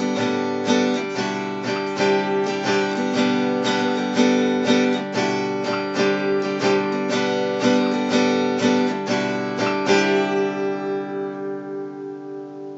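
Acoustic guitar strumming chords in a steady rhythm; the last strum comes about ten seconds in and is left to ring and fade out.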